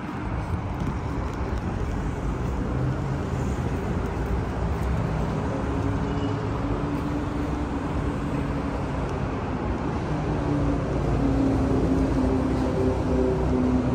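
City road traffic: a steady rumble of passing cars and vans, with a vehicle engine's hum coming in about halfway and growing a little louder near the end.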